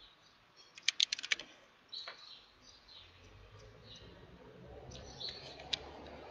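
A quick run of sharp clicks and taps about a second in, as a phone is picked up and handled, with small birds chirping now and then. A low background rumble grows louder near the end.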